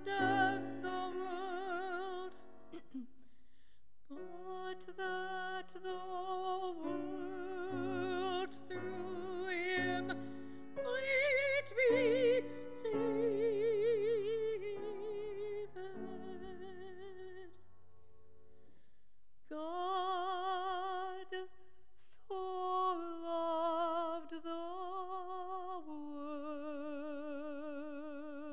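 A solo woman's voice singing a hymn with strong vibrato, accompanied by grand piano chords. The music breaks off briefly about three seconds in and again around eighteen seconds, and there is a single click a little after twenty seconds.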